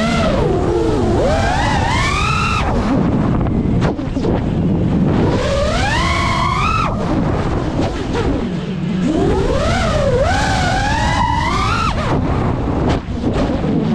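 5-inch FPV drone's brushless motors and propellers whining, the pitch rising and falling again and again as the throttle is punched and eased through flips and dives, over a steady rush of wind and prop wash on the onboard microphone.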